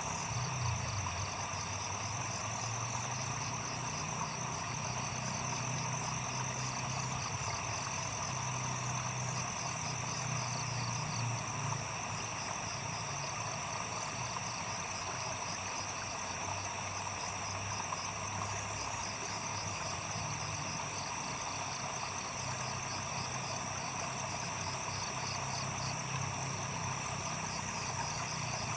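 Night chorus of crickets and other insects trilling steadily, with rapid pulsing chirps over it, a soft trickle of water, and a low steady drone underneath.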